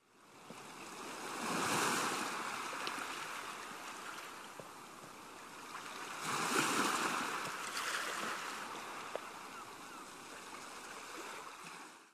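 Ocean surf: two waves break about five seconds apart, each a swell of rushing hiss that slowly dies away. It cuts off suddenly at the end.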